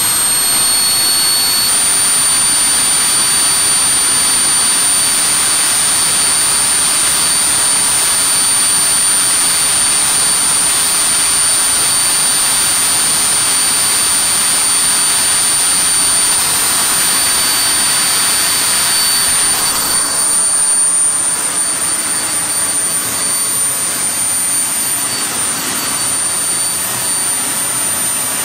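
Aerokontrol Engineering 400 N turbojet engine running: a loud high whine over a rushing hiss. The whine climbs slightly in pitch over the first couple of seconds, then holds steady, and the hiss eases about twenty seconds in.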